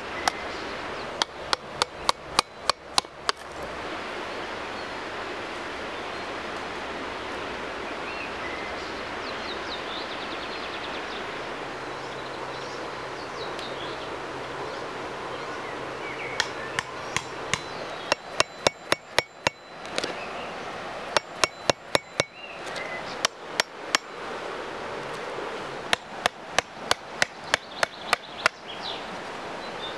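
Several quick runs of sharp wooden knocks, about four a second: a wooden baton striking a knife to drive it into a log round and split out chips, hollowing out its centre. A short run comes near the start, then a long pause before a longer series of runs in the second half. A steady rushing noise lies under it all.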